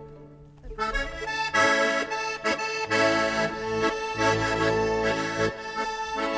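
Piano accordion playing alone, coming in about a second in with sustained chords over changing bass notes, the opening of a traditional central Polish folk tune.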